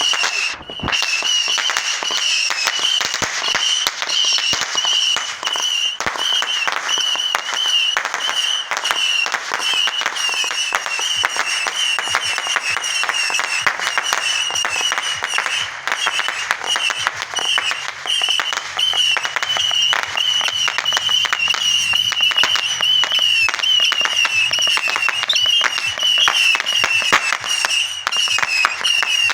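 Fireworks crackling densely and without let-up, a rapid patter of small pops like a crackling fountain or strings of firecrackers, with a steady, slightly wavering high-pitched whine running through it.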